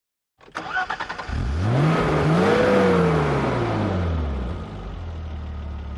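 Car engine starting: a click and a brief burst of starter cranking, then the engine catches, revs up and settles back to a steady idle.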